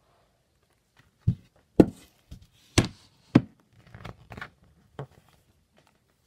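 Handling noise: a series of sharp knocks and thumps, the four loudest between about one and three and a half seconds in, followed by a few softer taps.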